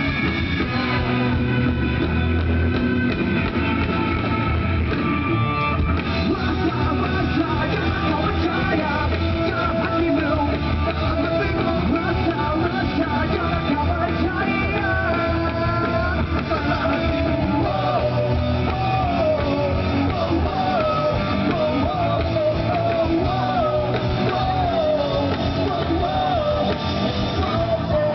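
Rock band playing live, loud and continuous: electric guitar with a singing voice carrying a wavering melody over the band.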